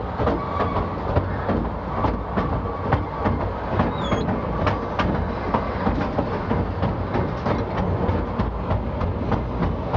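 Coal train rolling along the track, its wagon wheels clicking over rail joints on top of a steady low rumble, with a brief high squeak about four seconds in.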